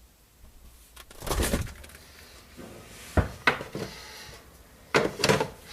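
A refrigerator door opening and things inside being handled: a few separate knocks and sharp clicks with short clattering.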